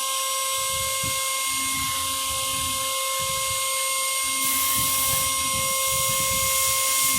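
CNC milling machine milling 7075 aluminium: a steady multi-tone whine from the spindle and drives over an irregular low chatter of the cutter in the metal. A louder hiss comes in about four and a half seconds in.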